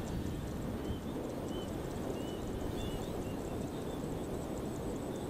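Outdoor ambience: a steady low rumble, with a few faint, short high chirps through the middle.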